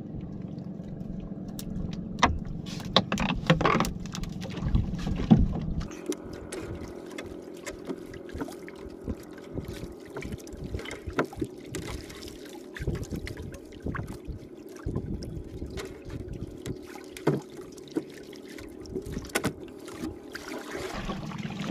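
Small fishing boat on the move: a steady engine hum, pitched lower in the first few seconds, with scattered knocks and clatter on board throughout.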